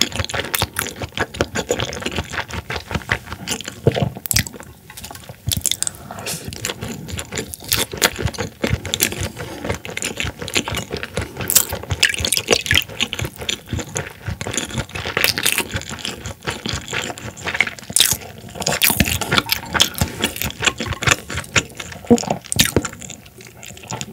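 Close-miked chewing of raw horse mackerel sashimi: dense, wet, crunchy mouth clicks. About halfway through, soju is poured from a glass bottle into a small cup.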